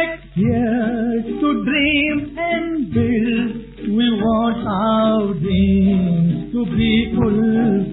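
Recorded song: a male voice singing a melody with a strong wavering vibrato over orchestral accompaniment, in a dull-sounding old recording.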